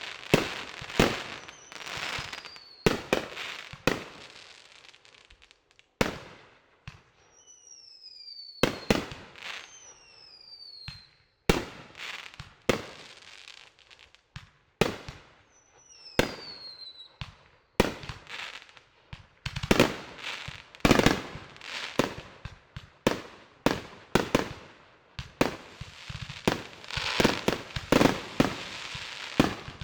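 Fireworks going off: repeated sharp bangs with echoing tails, a few falling whistles in the quieter middle stretch, then a dense run of bangs in the second half.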